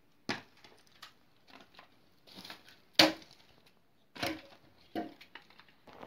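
An old wooden door and its wooden bolt being worked: a series of about six irregular wooden knocks and scrapes, the loudest about three seconds in.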